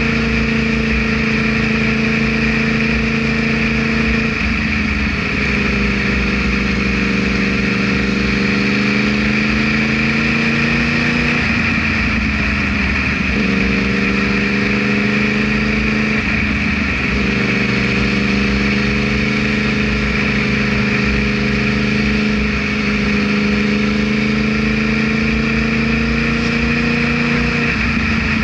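Yamaha R1 sport bike's inline-four engine running at steady revs while riding. Its pitch dips and picks up again several times: about four seconds in, around twelve and sixteen seconds, and near the end.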